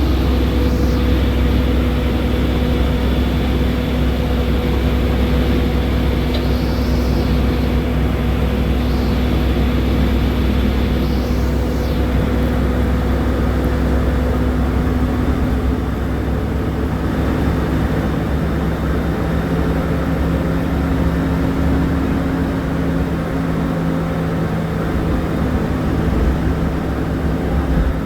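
Ashok Leyland BSVI diesel bus engine running steadily under way, a deep rumble with a steady engine hum and road noise; the deepest rumble eases about halfway through.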